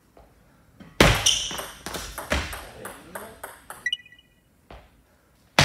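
Table tennis rally: a plastic ball struck by rackets and bouncing on the table, starting suddenly about a second in, then a short run of quick ringing ticks around four seconds in as the point ends.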